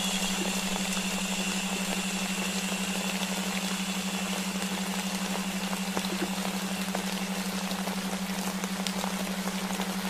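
Steady rain-and-white-noise hiss with faint drop ticks, layered over a continuous low hum tone of a delta-wave sleep track.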